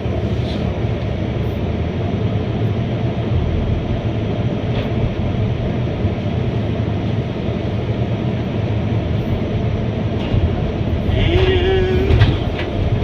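Diesel engine of heavy earthmoving equipment running steadily under load while the truck's tailgate is being latched. A brief wavering squeal sounds near the end.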